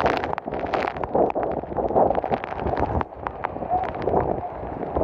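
Storm noise: heavy rain and gusting wind buffeting the microphone, with many short knocks and clatters throughout.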